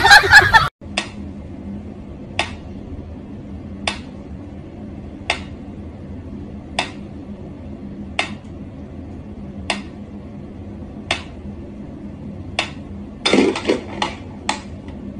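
Mechanical pyramid metronome ticking slowly, about one tick every second and a half, with a quick flurry of louder knocks near the end. A loud voice from the previous clip cuts off within the first second.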